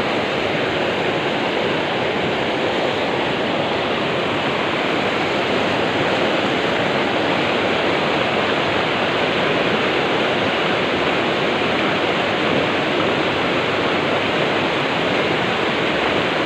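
Water pouring over a small concrete weir at a sluice gate and churning below it: a steady, loud rushing.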